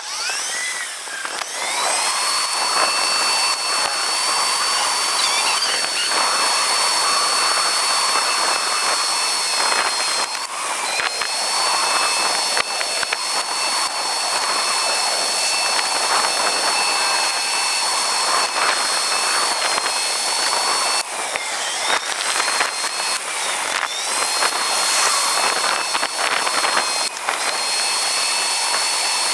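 Super Turbo 800 scooter under way: a steady high motor whine that rises as it pulls away in the first second or two and dips briefly about two-thirds of the way through, over rushing wind and road noise.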